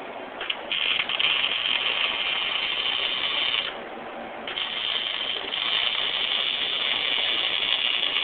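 Electric arc welding on a truck's exhaust pipe, fitting a glasspack muffler: the arc crackles and sizzles in two welding runs of about three and four seconds, with a short pause between them.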